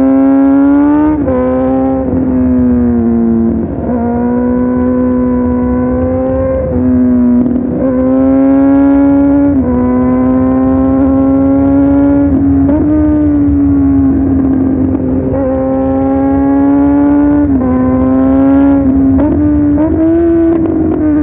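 Motorcycle engine running under way at fairly steady revs, its pitch easing up and dipping back every second or few as the throttle is opened and rolled off.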